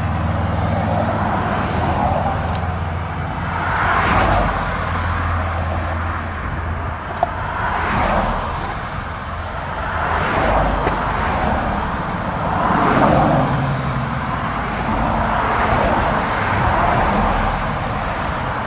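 Road traffic: cars passing one after another, each rising and fading over a couple of seconds, over a steady low hum.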